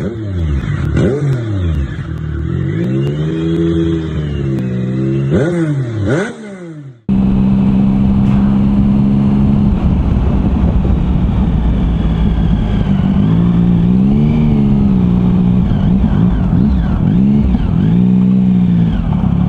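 A pitched sound swoops up and down repeatedly and cuts off suddenly about seven seconds in. Then a motorcycle engine runs on the road under heavy wind rumble, its pitch rising and falling twice near the end.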